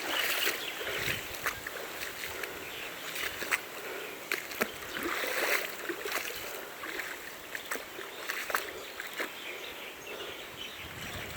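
Shallow stream water splashing and trickling, swelling and easing, with scattered sharp knocks and clicks.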